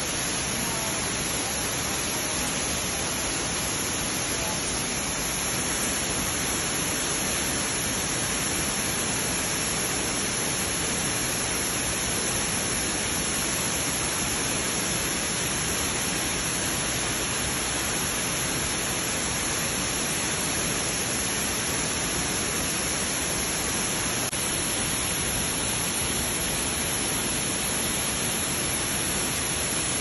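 Steady rushing roar of a large waterfall pouring into a pool.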